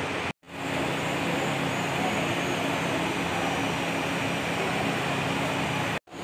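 Steady rushing background noise with a faint low hum, dropping out to silence for a moment twice, a little after the start and near the end, where the clips are cut together.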